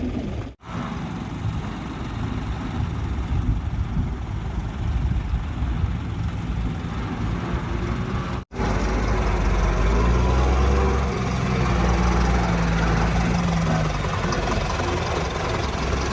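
A heavy truck engine running steadily, in three spliced pieces that break off abruptly about half a second and eight and a half seconds in; the last piece is louder and deeper.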